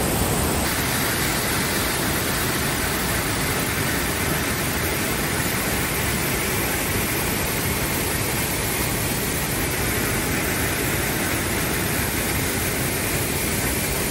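Rhine Falls waterfall: a steady, loud rush of whitewater pouring over the rocks, with no change in pitch or rhythm.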